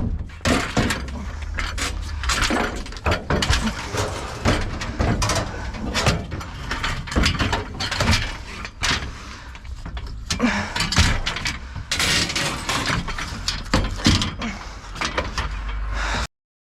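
Scrap metal being handled: a run of irregular clanks, knocks and rattles.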